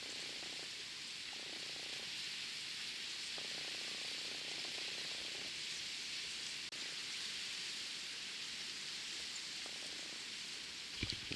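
Steady outdoor background hiss with faint low murmurs under it, cutting out for an instant about two-thirds of the way through.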